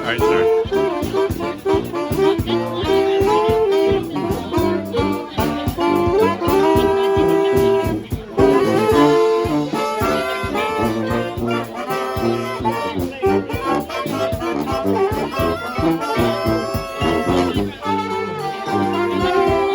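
A brass band playing a tune live, several horns in harmony over a steady drum beat, with a short break about eight seconds in before the full band comes back.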